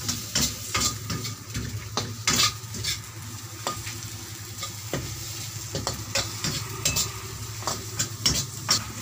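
Metal spatula scraping and clanking against a steel wok, stirring sliced onions and potato pieces that sizzle as they fry in oil. The strikes come at irregular intervals over a steady low hum.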